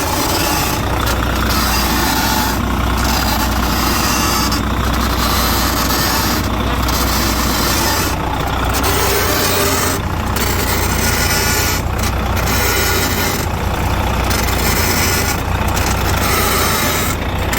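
Heavy truck's diesel engine idling steadily, with a regular change in the sound about every two seconds.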